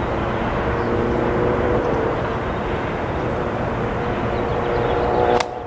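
Steady distant engine drone over a loud outdoor rumble, broken by a single sharp click near the end.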